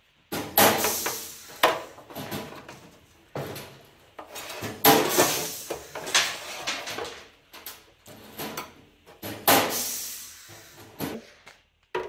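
Bent 20 mm stainless steel tube being handled against stainless sheet-metal oven panels as it is fitted into place: a series of irregular metallic clanks, knocks and scrapes, some with a short ring.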